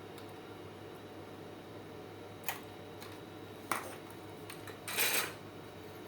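Small metallic clicks and clinks of tools and parts being handled as the faulty 12 V relay is taken off the UPS circuit board: two sharp clicks about a second apart, then a louder short clatter, over a steady low hum.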